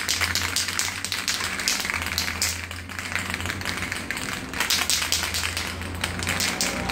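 Aerosol spray paint can being shaken hard, the mixing ball inside rattling in a rapid run of clicks that mixes the paint before spraying.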